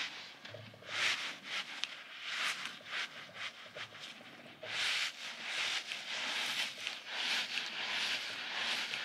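Soft goose-shaped squeeze toy being squeezed and kneaded in the hand close to the microphone: irregular rubbing, squishing strokes, coming thicker and more continuous from about halfway through.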